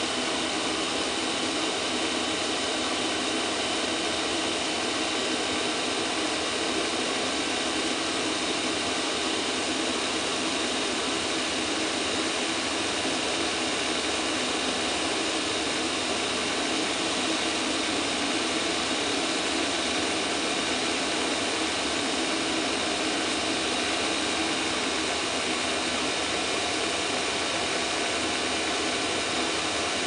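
5 kW Chinese planar-style diesel air heater running steadily: a continuous rushing whoosh of its fan and burner with a faint steady whine on top.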